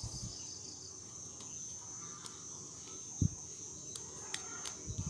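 A steady high insect trill in the background, with a few light clicks and one dull thump about three seconds in from hands tying a rubber band onto a small forked wooden stick.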